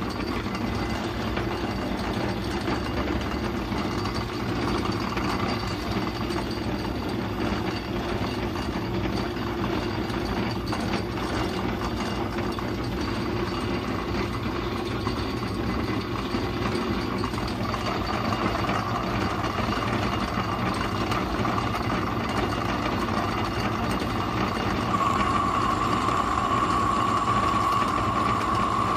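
Metal lathe running steadily, its motor and gear train whirring as the chuck turns a steel workpiece, with a higher whine growing louder over the last few seconds.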